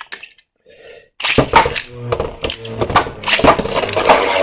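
A few faint plastic clicks, then about a second in two Beyblade Burst spinning tops are launched into a plastic stadium: a sudden loud clatter, then the tops spinning and clashing, with rapid sharp hits against each other and the stadium walls.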